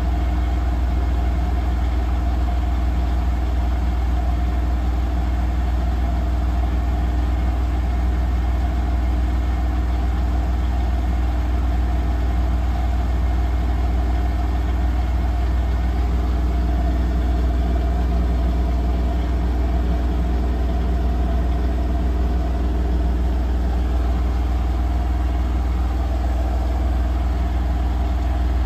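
Profilo Premium-9 front-loading washing machine in its high-speed final spin, the drum running steadily with a deep hum and an even motor whine.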